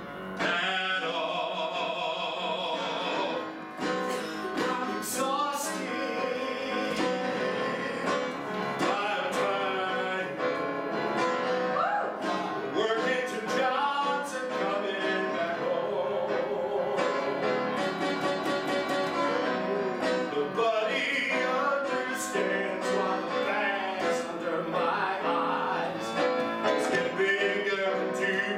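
A man singing over electric keyboard accompaniment.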